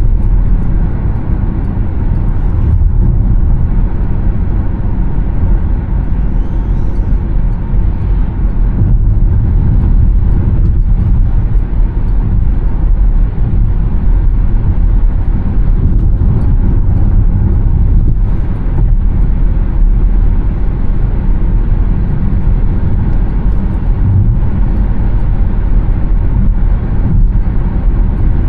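Steady low rumble of road and wind noise from a Škoda Elroq 60 electric car cruising at freeway speed, with no engine note.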